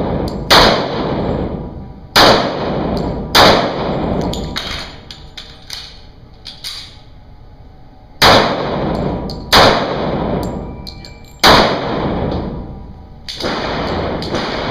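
Pistol shots in an indoor range with concrete walls, each shot followed by a ringing echo. About seven single shots come at irregular intervals, with a pause of roughly five seconds in the middle.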